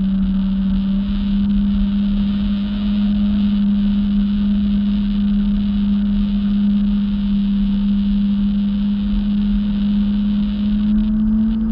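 Jet ski engine running at a steady speed: one droning pitch that edges slightly higher near the end, over a low rumble and a steady hiss.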